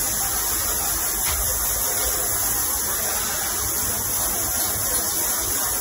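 Water spraying steadily from a handheld pull-down sprayer hose onto a soapy dog and into a stainless-steel grooming tub that has its drain stopped and is filling a little.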